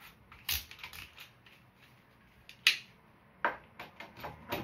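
A few sharp clicks and knocks of a bolt and a cordless drill being handled at a timber stud frame, the loudest about two and a half seconds in.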